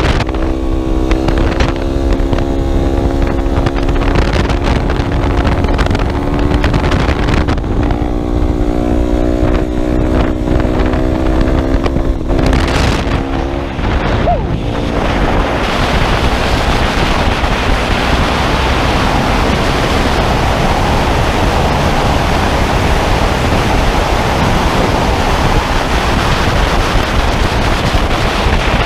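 Dirt bike engine running at a steady pitch, with wind rumbling on the microphone. About halfway through, the engine note fades into a rushing noise.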